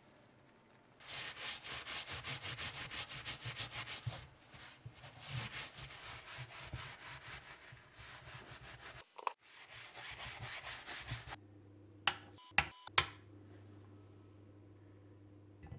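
Acetone-soaked paper towel rubbed quickly back and forth over a sandblasted cast-iron sign, degreasing it. About eleven seconds in the rubbing stops; a steady low hum follows, with three sharp clicks.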